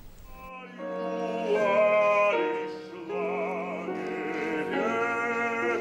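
Operatic tenor singing long held notes with vibrato, accompanied by piano; the music begins about half a second in.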